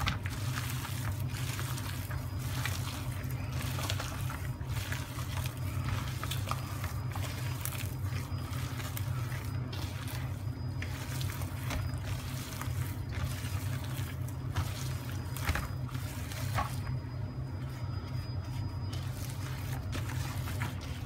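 Gloved hands kneading raw lamb mince in a stainless steel bowl: irregular wet squelching and slapping of the meat, over a steady low hum.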